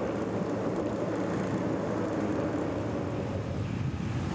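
Steady engine drone of the motor vehicles following the cycle race, with a mix of engine tones and road noise.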